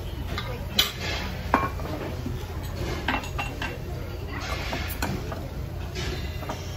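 Dishes and cutlery clinking during a meal: scattered sharp clinks, the loudest two about one and one and a half seconds in, over a steady low hum.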